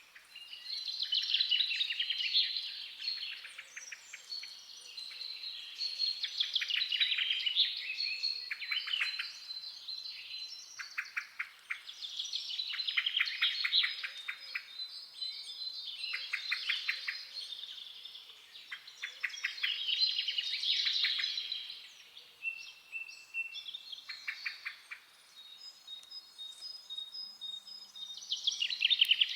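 Forest songbirds singing: bursts of fast trilled song come every few seconds, with thin, high, held whistles between them.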